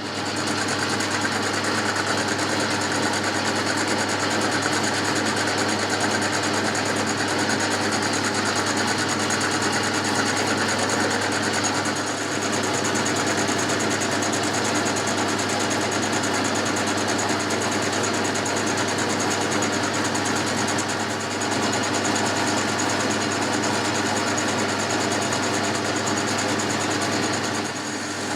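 Boxford metalworking lathe running steadily under power, a constant whir of motor, belts and gears spinning a mild-steel bar in the chuck.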